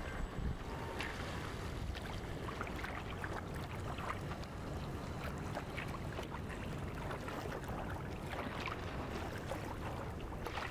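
Water lapping with many small irregular splashes over a steady low wind rumble.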